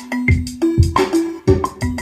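A looping drum-machine beat played from a Battery 4 drum kit through Maschine: deep kick drums, sharp clicky percussion hits and short held pitched notes.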